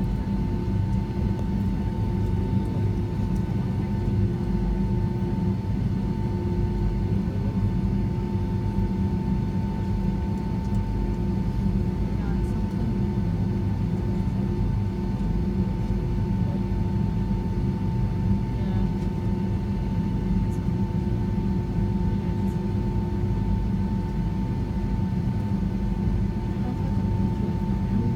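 Boeing 757-200 jet engines heard from inside the passenger cabin: a steady low drone with a constant whine, holding at one pitch.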